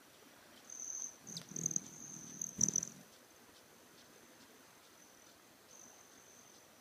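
Hummingbirds whirring in close to a feeder: from about a second in, for two seconds, a low wing hum with a high, cricket-like metallic trill, the wing trill of male broad-tailed hummingbirds, and a couple of sharp chips. A faint, steady high trill goes on after.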